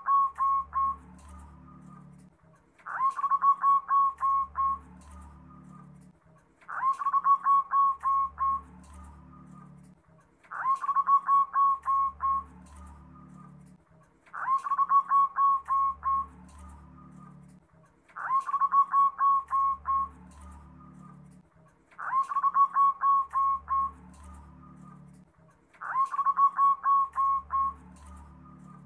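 Zebra dove (perkutut) singing its cooing song over and over, one phrase about every four seconds. Each phrase opens with a sharp rising note and runs into a quick, even string of coos lasting about two seconds.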